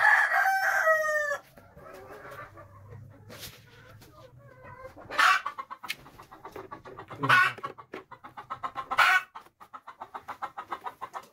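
Domestic chickens: a rooster crows once at the start, then hens give loud single squawks a few times, and a fast run of clucks begins near the end.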